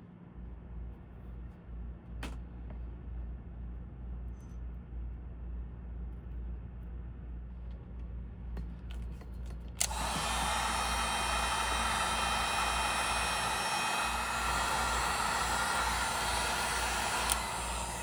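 Heat gun switched on about ten seconds in and blowing steadily for about seven seconds, shrinking heat-shrink tubing over a solder-seal wire splice, then switched off with a click near the end.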